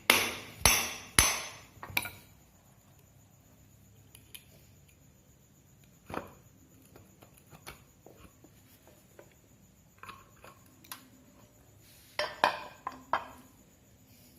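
Hammer blows on a ceiling fan's metal shaft and housing, knocking the part loose to get it out. Four ringing strikes come in quick succession at the start, a few light clicks and knocks follow, then another quick run of about four strikes near the end.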